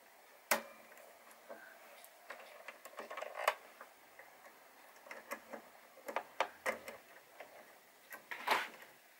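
Small irregular clicks and taps of plastic and metal parts as the presser foot is removed and the embroidery foot fitted on a Brother NV180D sewing/embroidery machine. The sharpest click comes about half a second in, and a louder one near the end.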